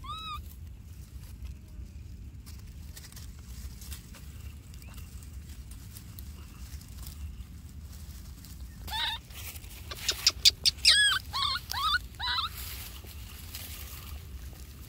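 Baby macaque crying in high, arching squeals that rise and fall in pitch: one short call at the start, then a run of about half a dozen louder calls from about nine to twelve and a half seconds in, with a few sharp clicks among them.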